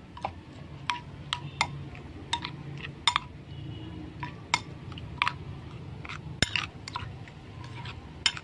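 Metal spoon stirring and mashing a wet prahok dip in a china plate, clinking against the plate about a dozen times at an irregular pace.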